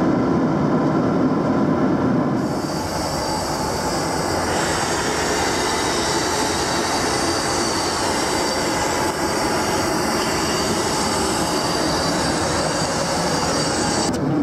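Steady roar of a Boeing 737 cabin in cruise: engine and airflow noise heard from inside the airliner, with a brighter hiss joining about two seconds in.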